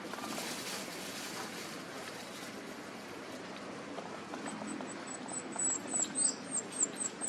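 Young puppies whimpering in a run of short, very high-pitched squeaks, several a second, starting about four seconds in.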